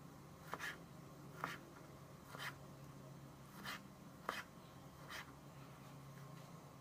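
Kitchen knife slicing cherry tomatoes on a plastic cutting board: about six faint, separate taps of the blade meeting the board, roughly one a second.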